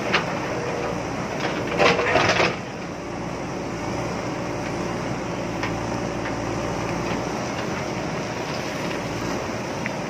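JCB ecoXcellence backhoe loader's diesel engine running steadily under load while its rear bucket scrapes through loose rock and stone. There is a louder burst of stones crunching and clattering about two seconds in.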